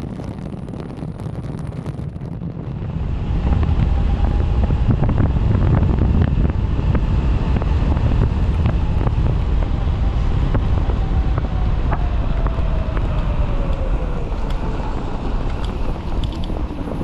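Wind buffeting the microphone on a fast-moving electric bike, much louder from about three seconds in. Under it a faint whine from the QS 5000 W hub motor sinks in pitch over the last few seconds as the bike slows.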